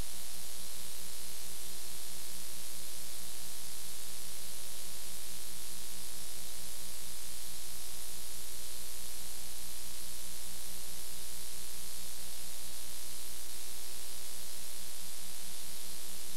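Steady static hiss, like white noise, at an unchanging level, with a low electrical hum and its overtones underneath.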